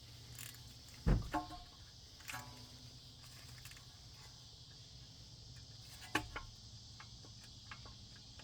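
A few sharp metallic clicks and knocks from a hand tool working at a seized brake-rotor retaining screw whose head is stripping. The loudest comes about a second in, with another pair a little after six seconds. Under them runs a faint, steady high-pitched hum.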